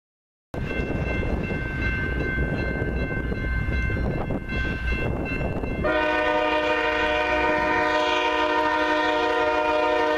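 Freight train approaching: low engine rumble with faint steady high tones, then about six seconds in the lead diesel locomotive's multi-chime air horn sounds a long blast.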